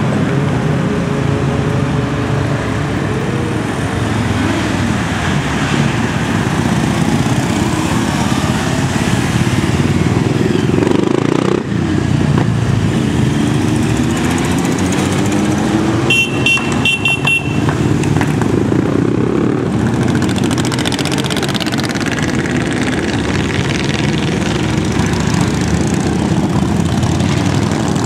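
Motorcycles and maxi-scooters riding past one after another, their engines revving up and down as each pulls away, so the engine noise never stops.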